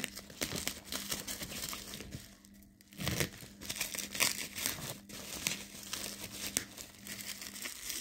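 Bubble wrap crinkling and tearing as it is cut with a small knife blade and pulled apart by hand, in irregular crackles with a brief pause about a third of the way in.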